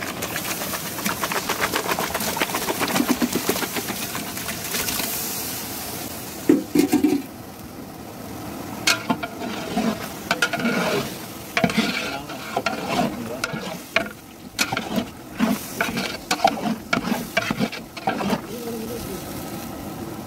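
Masala sizzling in a large metal pot while a metal ladle stirs and scrapes it, fast and steady at first. About six and a half seconds in there is a loud knock, then irregular scrapes and knocks of the ladle against the pot as raw chicken pieces are stirred into the gravy.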